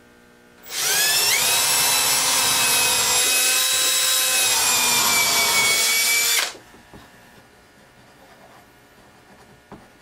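Cordless drill spinning up and running steadily into eastern red cedar boards for about six seconds, then stopping.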